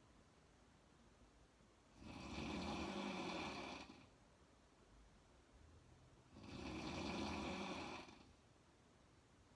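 A woman snoring: two long snores about four and a half seconds apart, each lasting about two seconds.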